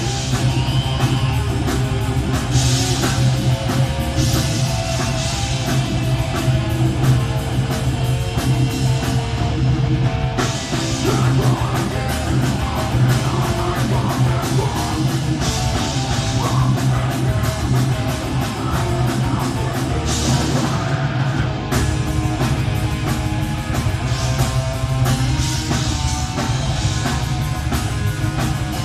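Live heavy metal band playing loud and without a break, with distorted guitars, drum kit and vocals. The sound is recorded on a mobile phone.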